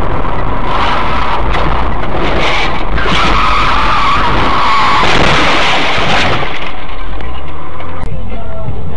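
Car tyres skidding, a loud squealing hiss lasting about six seconds, followed by quieter low road rumble.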